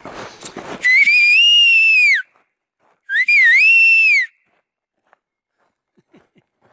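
A person whistling loudly twice, each whistle about a second long, high and clear, dropping in pitch at its end, the second with a quick dip and rise at its start: a call to hiking companions up the hill.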